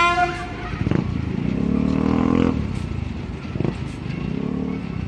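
A short, loud blast of a small diesel locomotive's horn that cuts off about half a second in. It is followed by an engine running louder for a second or two, rising and then falling away.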